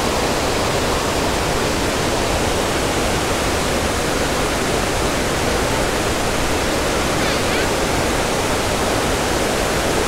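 Mae Ya Waterfall and the rapids below it in full flow, a loud, steady rush of falling and tumbling water.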